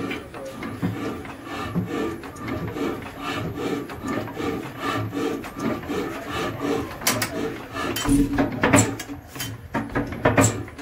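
Old Ruston stationary diesel engine being hand-cranked to start: a rhythmic clatter and rasping from the crank handle and the turning flywheel, with louder knocks in the last few seconds, and the engine not yet firing.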